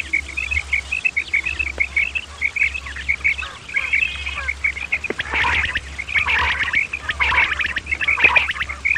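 Quail calling the 'kirak' call: a rapid run of short, repeated chirping notes, about four or five a second, with louder, harsher calls joining in from about halfway.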